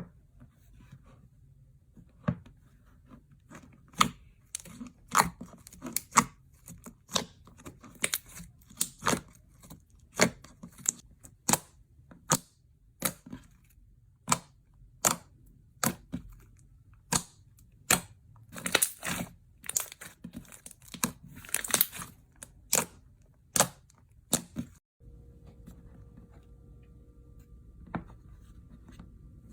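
A run of crisp, sharp cracks and snaps, a little more than one a second, with a few longer crackling tears; they stop suddenly a few seconds before the end, leaving a faint steady hum.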